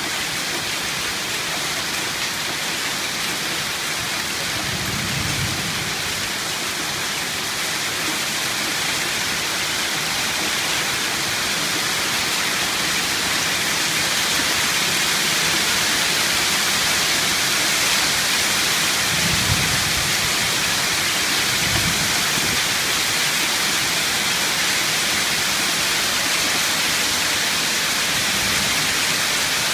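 Heavy hailstorm: hailstones and rain pelting down in a dense, steady hiss that grows louder partway through. A few brief low rumbles come through underneath.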